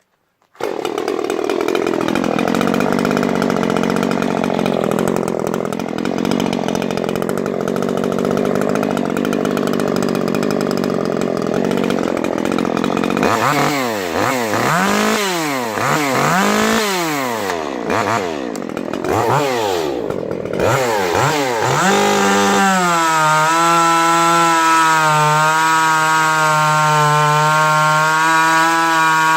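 Stihl MS 150 TC top-handle chainsaw, a small two-stroke with a ported cylinder and modified muffler, running fairly steadily. From about halfway it is revved up and down in about six quick blips, then held at full throttle at a steady high pitch.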